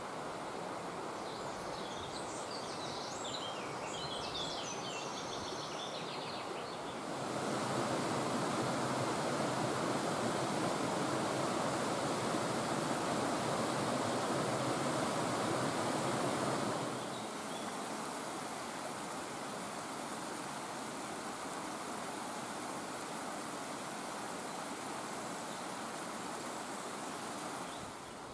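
Forest stream rushing over rocks as a steady wash of water noise, louder from about seven to seventeen seconds in. High chirping comes from about two to six seconds in.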